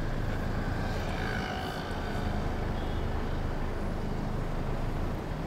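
Steady engine and road rumble heard from inside a moving vehicle driving through city street traffic.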